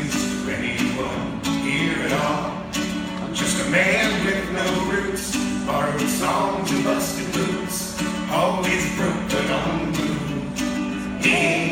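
Live band performance of a rock song, with acoustic guitar strumming prominent in the mix.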